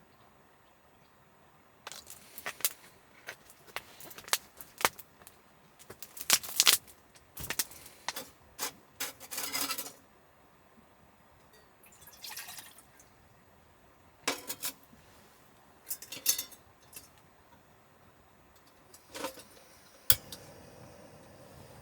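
Irregular clicks, clinks and short rustles of small hard objects being handled, in several bursts with gaps between, ending in one sharp click.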